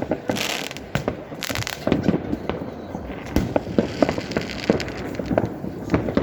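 New Year fireworks going off in many directions: a dense run of bangs and crackling reports over a steady rumble, with a hissing burst about half a second in.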